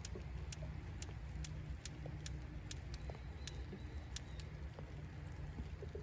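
Wood fire crackling in a stone fire pit, with sharp irregular pops about two a second over a steady low rumble.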